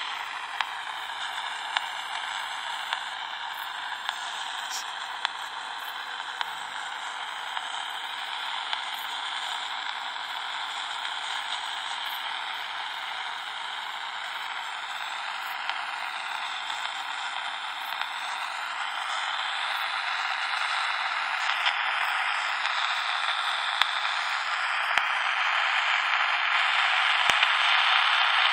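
Static hiss from a Danita 86 six-channel walkie-talkie's speaker, with a faint whistle drifting slowly up and down in pitch through it and light ticks about once a second in the first few seconds. The hiss grows louder toward the end as the speaker grille comes up close.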